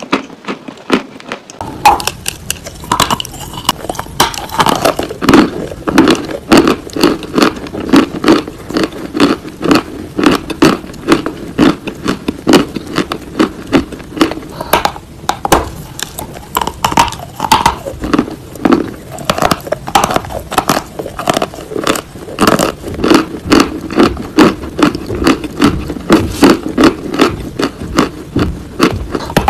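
Dry Turkestan white clay bitten and chewed close to the microphone: a steady run of crisp crunches and crackles, several a second.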